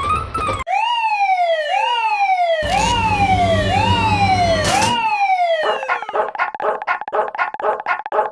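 Cartoon sound-effect siren: a run of about six falling wails, each sliding down from high to low, with a low rumble joining midway. It then changes to a fast-pulsing electronic alarm of about three beats a second, a level-crossing warning signal in this animation.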